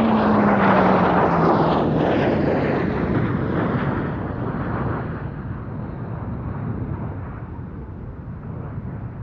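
English Electric Canberra PR9 and Hawker Hunter T7 jets flying past together, their Rolls-Royce Avon turbojets loud at first with a falling whine over the first couple of seconds. The roar then fades steadily as they fly away.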